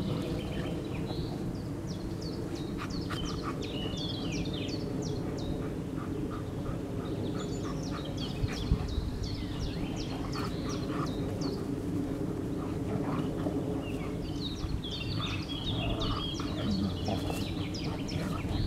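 Songbirds singing in bursts of quick, high chirps, over a steady low rumble.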